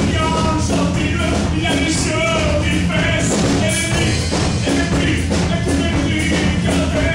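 Live acoustic band playing: acoustic guitar, upright double bass and drums keeping a steady beat, with a melodic lead line on top.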